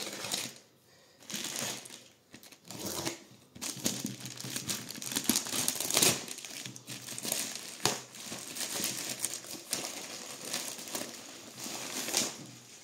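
Plastic mailer bag being slit with a utility knife, then torn open and pulled off a cardboard box: irregular crinkling and ripping of the plastic, with the loudest rip about six seconds in.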